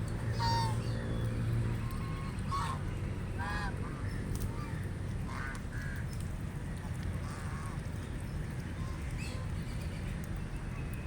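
Ducks calling: about six short, separate honking quacks at irregular intervals, over steady outdoor background noise.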